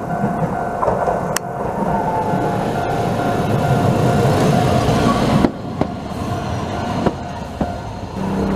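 Toei 7700-series streetcar rolling past over a level crossing, its wheels clicking sharply over rail joints several times above a running rumble. A level-crossing warning bell rings steadily over it and stops abruptly about halfway through.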